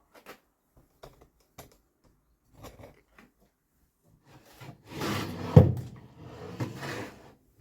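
Handling noises: a few light clicks and knocks, then a louder stretch of rubbing and scraping in the second half with one sharp knock partway through.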